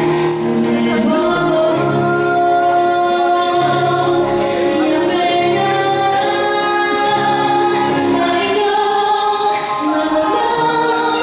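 A song playing, with singing voices holding long notes over the music.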